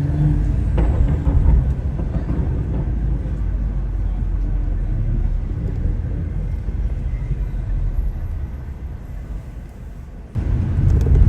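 Car engine and road noise, a steady low rumble that slowly fades away over several seconds, then jumps abruptly louder again about ten seconds in.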